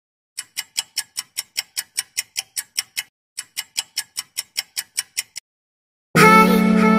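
Rapid ticking sound effect, about five sharp ticks a second, pausing briefly about halfway and then stopping. After a moment of silence, music comes in loudly near the end.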